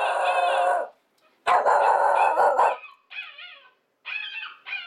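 Shiba Inu barking and howling: two long drawn-out cries of about a second each, then short wavering yips near the end.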